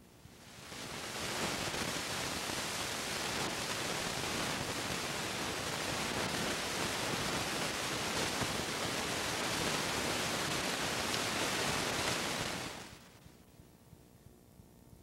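Steady static hiss spread across all pitches, fading in over the first second or so and fading out a couple of seconds before the end.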